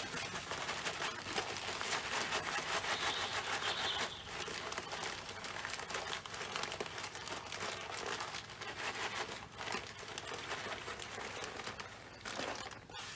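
Plastic bag of bird seed crinkling and rustling as it is handled and poured out, busiest in the first few seconds.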